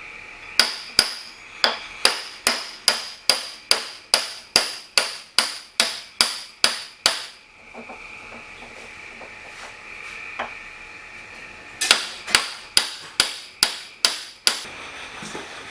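Steady hammer blows on steel, ringing, driving a stuck shaft out of its bore in a drill press feed box: a run of about seventeen strikes at two to three a second, a pause of about four seconds, then eight more quicker strikes.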